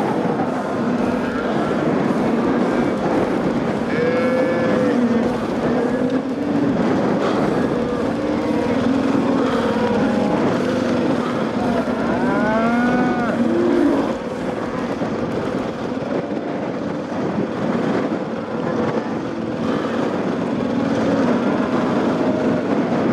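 Cattle mooing several times over the steady drone of a motorcycle engine. The clearest moos come about four seconds in and again around ten to thirteen seconds in.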